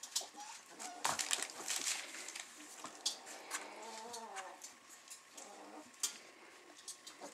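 Three-and-a-half-week-old Weimaraner puppies vocalizing as they play-fight, with short squeaks and one longer wavering cry about four seconds in, over scattered clicks and scuffles.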